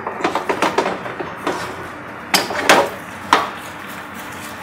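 Cavatelli pasta being tossed in a metal sauté pan on a gas range: a run of swishing tosses against the pan, the loudest a little past halfway, followed by one sharp knock.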